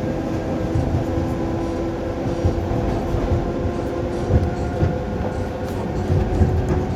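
ED4M electric multiple unit running under traction power: a steady low rumble with a few steady tones above it, and a few knocks of the wheels over rail joints in the second half.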